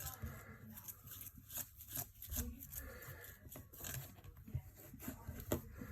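Faint handling noises: light rubbing with small irregular clicks and taps as a cracked phone screen is wiped clean by hand.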